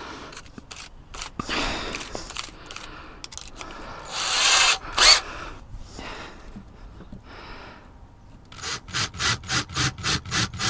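Cordless drill working a small bit through a plywood template into fibreglass: scattered clicks and rubbing, a short burst of drilling about four seconds in, then a fast, even scraping of about six or seven strokes a second near the end.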